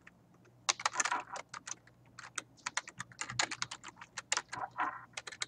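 Typing on a computer keyboard: irregular keystrokes, starting just under a second in after a short pause.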